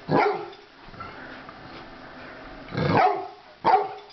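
Dogs at play barking: three short barks, one at the start and two close together near the end.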